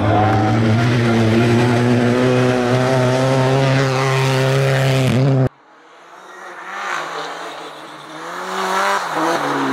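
Abarth 124 Rally's turbocharged four-cylinder engine at high revs close by, its pitch climbing slowly. It cuts off suddenly a little past halfway; then the car is heard further off, growing louder as it approaches, with the engine pitch rising and dipping through gear changes.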